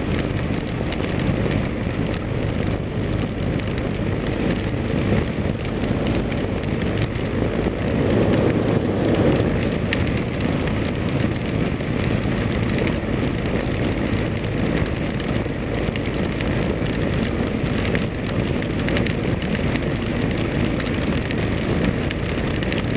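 Kawasaki KLR dual-sport motorcycle riding at steady speed on a wet road in rain: a steady rush of wind and road noise, with the engine running underneath.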